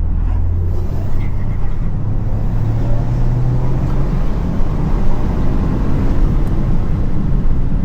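Toyota GR Yaris three-cylinder engine running under way, a steady low drone whose pitch rises slightly about two to three seconds in and then settles back.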